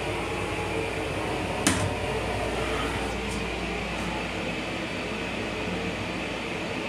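Steady hum of a Long Island Rail Road M9 railcar heard from inside its restroom: the car's ventilation and running noise. One sharp knock about two seconds in.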